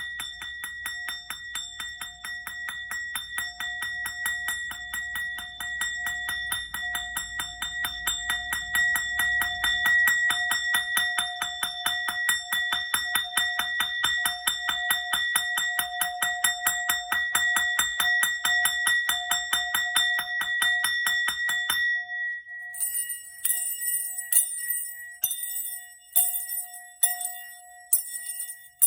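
Hand bell rung continuously with fast, even strikes over a steady ringing tone. About 22 seconds in the fast ringing stops and brighter, irregular tinkling jingles take over while part of the bell's tone lingers.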